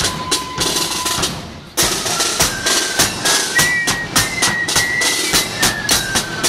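Marching band's snare drums, crash cymbals and bass drum playing a quick march beat, with a thin high melody line over the drums. The drumming thins out briefly, then the whole band strikes back in together just under two seconds in.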